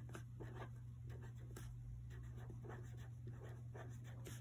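A pen scratching on paper in short, irregular strokes as words are handwritten on a worksheet, over a steady low hum.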